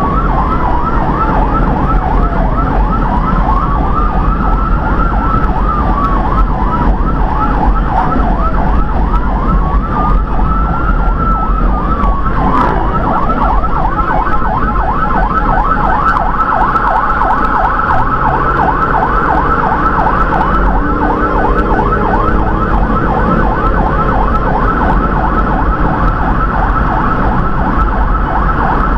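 Electronic emergency siren on the responding vehicle, heard from inside the cab over engine and road noise. A slow wail rises and falls about every six seconds with a rapid warble over it, then switches to a fast yelp about halfway through.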